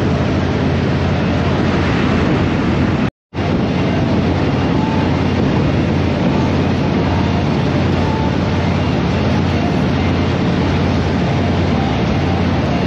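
Motorcycle riding at highway speed: a steady low engine drone under heavy wind rush on the microphone. The sound cuts out completely for a moment about three seconds in.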